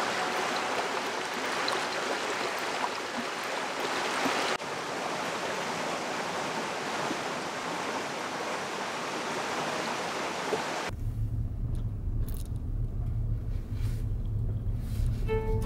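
Water running over a shallow pebbled streambed, a steady wash. About eleven seconds in, this gives way to the low rumble of a Suzuki Hustler driving, heard from inside the cabin.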